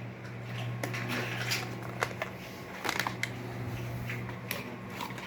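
Packaging of a magic cube being opened by hand: scattered crinkles, rustles and small clicks, over a low steady hum.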